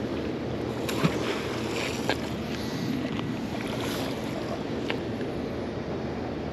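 Steady rushing noise of flowing river water, with a few light clicks about one, two and five seconds in.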